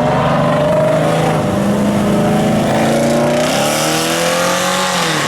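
Car engine revving and accelerating under load, its pitch climbing over the first few seconds, then falling near the end.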